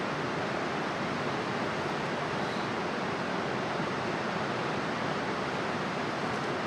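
Steady rushing of water, even and unbroken, with no other distinct sounds over it.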